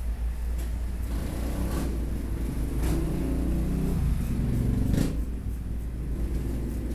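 Straight razor scraping stubble in a few short strokes, over a steady low rumble of street traffic. The rumble swells to a peak about five seconds in as a vehicle passes.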